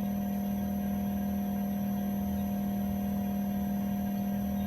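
Bosch 4-ton split heat pump outdoor unit running, its variable-speed inverter compressor ramping up at low speed. It gives a steady low hum with fainter higher whines above it, running quietly.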